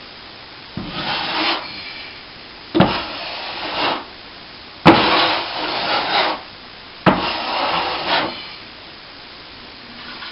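Steel plastering trowel scraping across setting plaster on a patched plasterboard wall: four long strokes, each starting with a sharp catch of the blade. It is the final scrape as the plaster goes hard.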